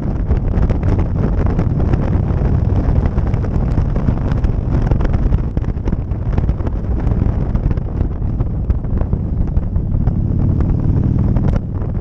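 Wind rushing over the microphone of a camera on a moving motorcycle, with the motorcycle's engine running steadily underneath.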